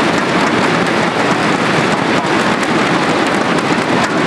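Crowd of spectators beating inflatable thunderstick balloons together, a loud, dense, steady clatter.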